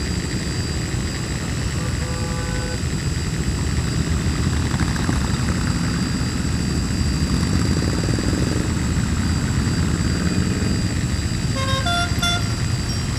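Steady whine and rush of a hovering camera drone's propellers over the low rumble of cruiser motorcycles riding past. A horn sounds briefly about two seconds in and gives a few short toots near the end.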